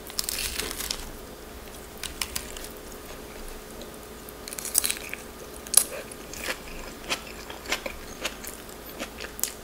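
Close-up eating of a crisp mini romaine salad: a crunchy bite just after the start, then chewing, with short sharp clicks of a fork against the ceramic bowl now and then.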